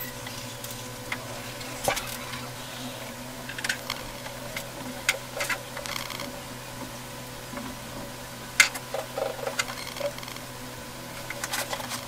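Scattered light taps and ticks of a short-bristled paintbrush dabbing oil paint onto a stretched canvas, over a steady low hum.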